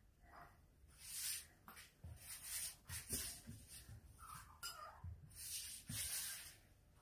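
Faint, intermittent soft rubbing and swishing of hands working oiled dough ropes on a wooden cutting board.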